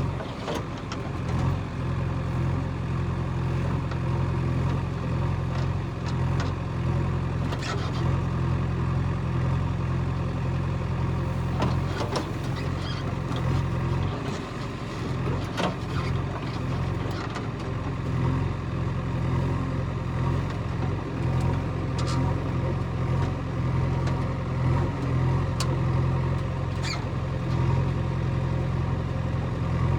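Diesel engine of heavy loading machinery running steadily, with a handful of sharp knocks or clanks scattered through.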